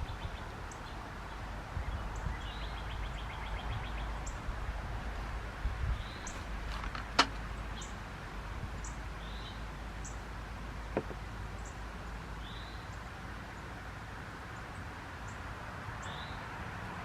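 A bird calling over and over: short chirps repeating every second or two, with fainter high ticks between them. A sharp click about seven seconds in, and a smaller one about four seconds later.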